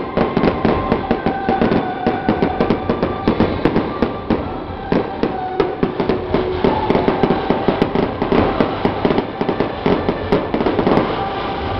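Fireworks going off in a rapid, dense barrage: a continuous string of sharp bangs and crackles, several a second.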